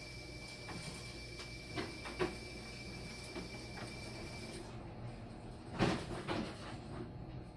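Several knocks and clatters of handling, the loudest pair about six seconds in, over a steady high-pitched electronic tone that cuts off a little past halfway.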